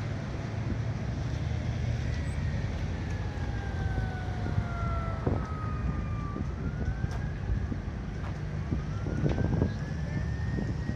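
Emergency-vehicle siren wailing, its pitch sliding slowly down and then back up, over a steady low rumble of traffic and wind, with a few knocks.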